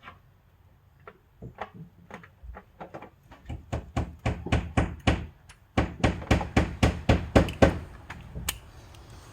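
A run of sharp knocks and clicks, sparse at first, then regular at about three a second for several seconds before fading, heard while a 12 mm socket is being fetched.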